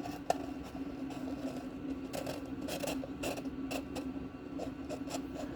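Scattered light clicks and taps of hands working parts and tools into place, a few of them in quick succession in the middle, over a steady low hum.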